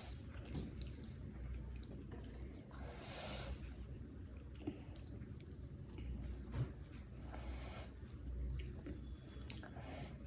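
Close-miked chewing of chicken biryani: soft wet mouth clicks and smacks, with two brief breathy hisses, one about three seconds in and one near seven and a half seconds.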